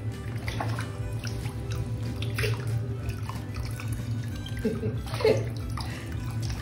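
Water poured from a plastic scoop over a dog standing in a filled bathtub, splashing and trickling back into the bathwater, over steady background music.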